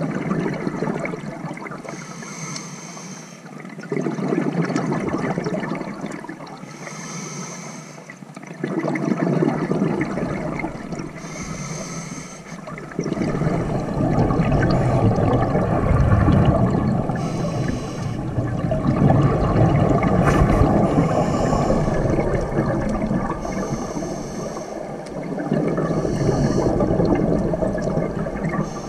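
Scuba diver breathing through a regulator underwater: a short hiss on each inhale, about every four to five seconds, alternating with a longer rush of exhaled bubbles. The bubble noise grows heavier and more continuous about halfway through.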